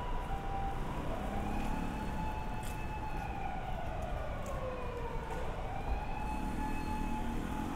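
Emergency-vehicle siren passing through the street. A two-tone hi-lo call near the start gives way, about a second in, to a slow wail that rises and falls over several seconds. Low traffic rumble runs underneath.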